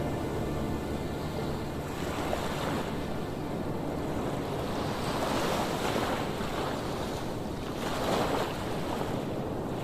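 Sea waves washing in and breaking against the stones of a shore, surging and easing a few times. Under it runs a steady low rumble of wind on the microphone.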